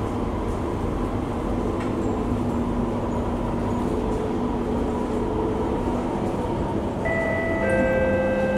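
Singapore MRT train running, heard from inside the carriage as a steady rumble with a faint steady whine. About seven seconds in, a chime of several bell-like notes rings out over it, like the onboard announcement chime.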